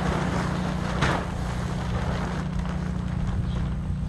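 Coleman tent fabric rustling as it is handled, with a louder swish about a second in as the tent body drops, then quieter. A steady low hum sits underneath.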